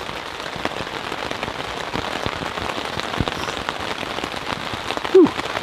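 Rain pattering steadily, with many scattered drop ticks. About five seconds in there is a brief voiced sound from a person, the loudest moment.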